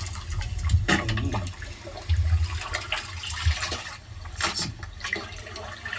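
Water splashing and sloshing in a metal pot as raw chicken pieces are washed by hand, with scattered short splashes and clinks.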